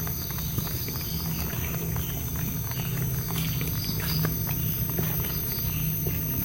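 Night-time outdoor ambience: insects chirring steadily over a low hum, with scattered faint clicks and rustles of someone walking through undergrowth.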